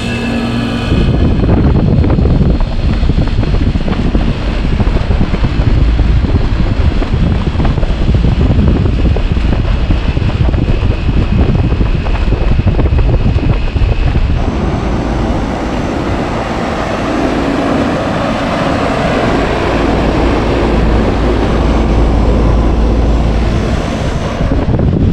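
1995 Trane XE1000 2.5-ton central air conditioner outdoor unit running just after start-up, its compressor and condenser fan going steadily, with heavy low wind buffeting on the microphone. The sound changes character about halfway through.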